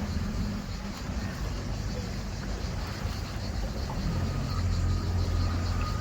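Tour boat's engine running steadily under way, a low hum under an even rushing noise; the hum grows stronger for about a second and a half near the end.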